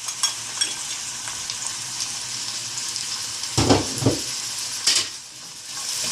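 Chopped red onion sizzling as it fries in hot oil in a pot. A spoon stirs it, with a few loud scrapes and knocks against the pot about three and a half to five seconds in.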